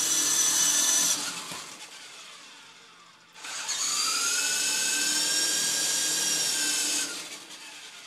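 Small electric remote control helicopter's rotor motor whining: running at the start and cutting off about a second in, then spinning up again a couple of seconds later with a rising whine, running steadily for several seconds and winding down near the end.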